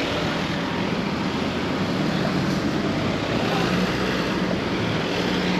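Steady road traffic noise with a low, even engine hum.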